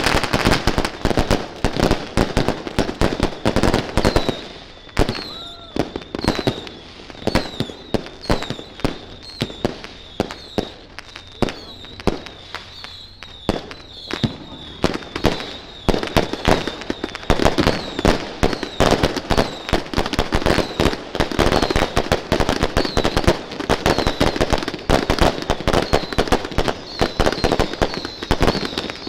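Firecrackers and fireworks going off in rapid series: dense crackling bangs that thin to scattered pops about five seconds in, then build back to a thick barrage after about fifteen seconds, with a short high chirp recurring throughout.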